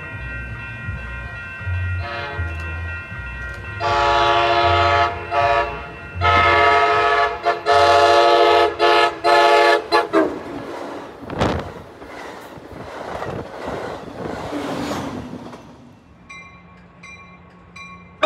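Amtrak Pacific Surfliner cab car's horn sounding several loud blasts, one short and then a longer broken series, its chord sliding down in pitch as the train goes by. The rush and rumble of the passing train follows, and faint regular dinging is heard near the end.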